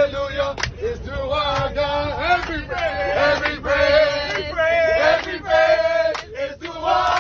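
A group of young people singing a chanted song together, holding long notes, with sharp hits now and then.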